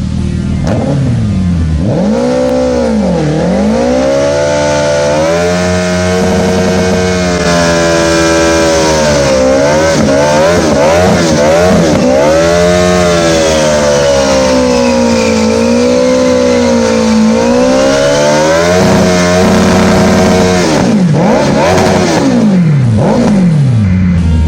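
Suzuki Hayabusa inline-four motorcycle engine, heard from on the bike, revving up and easing off again and again as it accelerates, shifts and slows in traffic.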